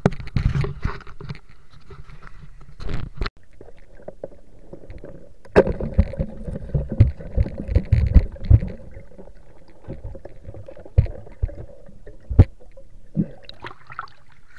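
Close, irregular splashing and sloshing of river water with knocks and rubbing from fishing tackle being handled by the microphone. There is a busy run of knocks from about six to nine seconds in, then a few single sharp knocks near the end.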